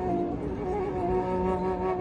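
Long bamboo Tunisian ney, a low-register (qarar jaharkah) end-blown reed flute, played by two men at once: one blows, the other fingers the holes. It plays a slow melody, stepping between a few held notes.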